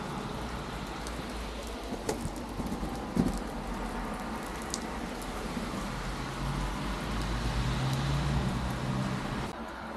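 Steady rain falling on a wet cobblestone street, with a low hum that swells and fades in the second half.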